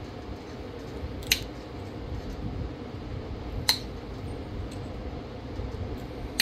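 Obsidian blade edge being pressure-flaked with a copper-tipped flaker: three sharp clicks, about two and a half seconds apart, as small flakes pop off the edge to sharpen it.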